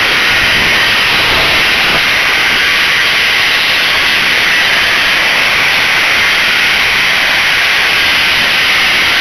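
Power tool fitted with a TCT rotary chisel mortar rake, raking out brick mortar joints with dust extraction running. It makes a loud, steady hiss that does not change.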